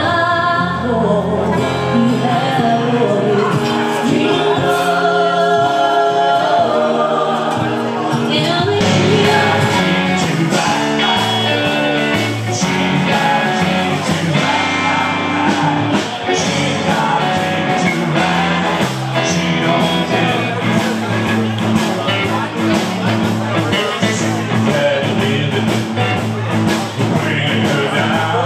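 Live band playing rock-and-roll style music, with a singer's voice over a steady beat.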